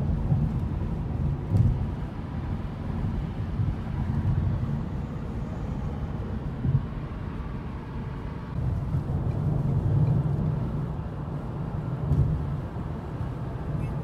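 Car cabin noise at highway speed: a steady low rumble of tyres and engine that swells now and then.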